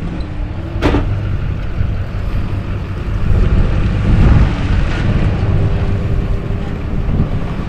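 Tow vehicle running as it backs the boat trailer down the launch ramp: a low rumble, mixed with wind buffeting the microphone. A short knock about a second in.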